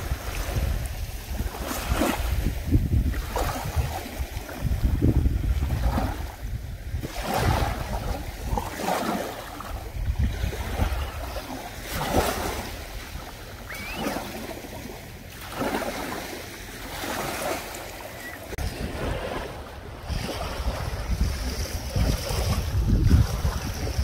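Small waves lapping and washing up a beach of crushed shell and gravel, a swash every couple of seconds, with wind rumbling on the microphone.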